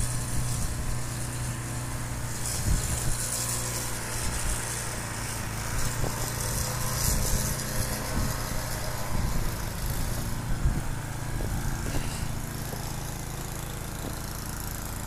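Small snow-thrower engine running steadily at an even speed.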